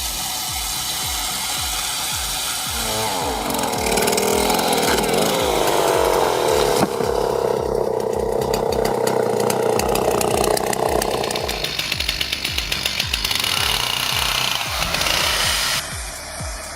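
A chainsaw running, its note wavering up and down, from about three seconds in until it stops near the middle, over background music with a steady beat.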